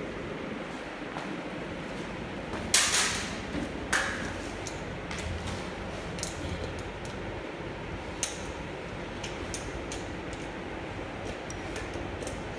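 Small hardware handled on a panel while a caster wheel is fitted: bolts, nuts and a screwdriver click and clatter. A louder rattle comes about three seconds in, a sharp clack a second later, then light ticks, over a steady background hum.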